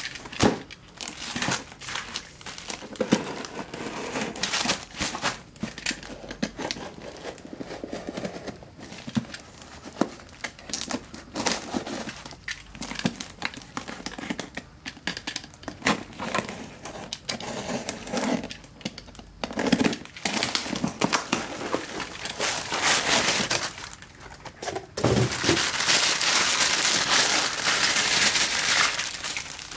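Cardboard parcel being handled and its packing tape cut and torn open, with scattered scrapes, taps and rips. Near the end a plastic bag and bubble wrap crinkle loudly and continuously.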